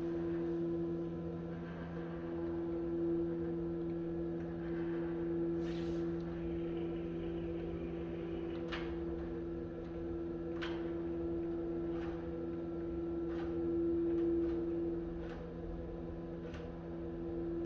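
CNC router spindle running with a steady whine as it surfaces a timber slab flat, skimming about 1 mm off the top. Short sharp ticks come every second or two in the second half.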